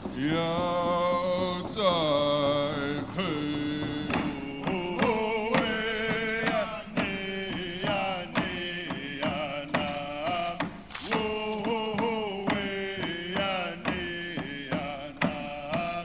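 Kwakwaka'wakw ceremonial dance song: a voice chanting in long held, bending phrases, with scattered sharp percussive strikes.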